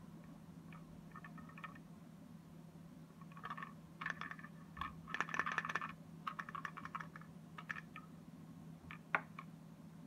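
Thin wooden panels of a Japanese yosegi secret puzzle box clicking and rattling as they are slid and handled, in quick clusters of light taps, busiest around the middle, with one sharper click near the end.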